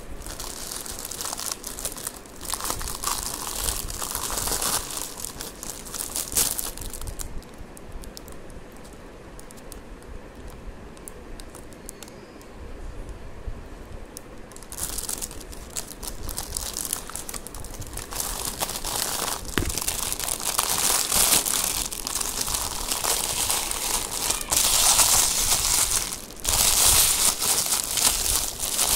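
Bubble wrap, clear plastic and paper packaging crinkling as it is handled and unwrapped. The crinkling comes in bursts at first, eases off for a stretch in the middle, then grows louder and denser in the second half.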